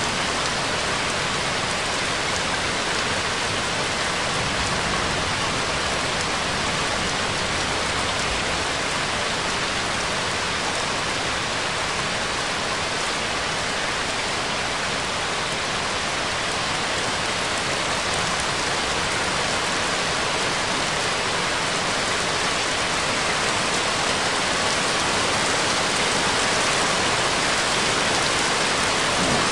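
Steady rain, an even continuous hiss of falling rain.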